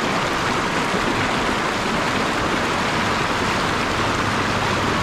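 Mountain stream rushing over and between boulders in a small cascade: a steady, unbroken rush of white water.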